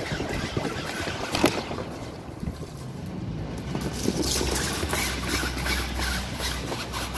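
Wind buffeting the microphone, a steady low rumble with hiss, with a few sharp knocks in the first two seconds.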